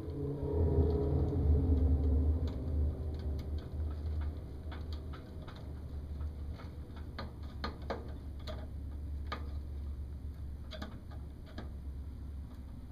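Small scattered clicks and ticks of a screwdriver working the terminal screws of a mini-split outdoor unit's wiring block as wires are fastened under them. Underneath is a low rumble, loudest in the first few seconds, then steadier and quieter.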